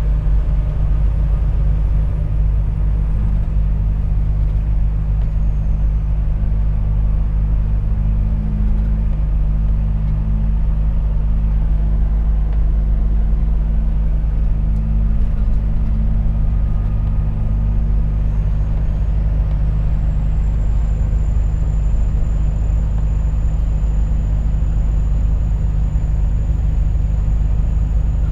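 Volvo FH 460 truck's 13-litre six-cylinder diesel engine running steadily under way, a deep even drone mixed with road rumble.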